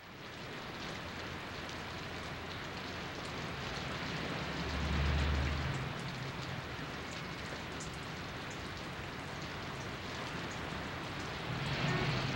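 Steady rain pattering on wet pavement. A low rumble swells and fades about five seconds in, and near the end a car drives past on the wet street.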